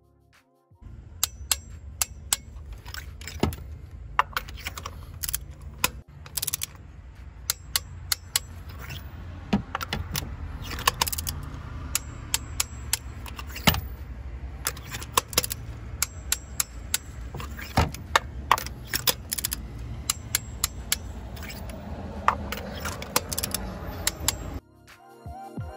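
Irregular metallic clicks and clinks of a Tekton ratchet torque wrench and extension working spark plugs down to torque in the aluminium cylinder head, over a steady low hum.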